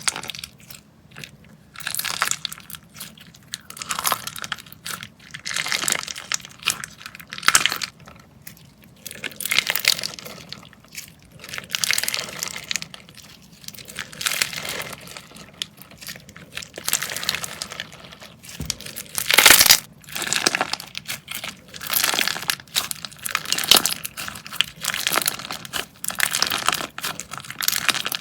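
Slime being squeezed and pressed by hand, making crackling, crunching sounds in repeated bursts about every two seconds. The loudest burst comes a little over two-thirds of the way through.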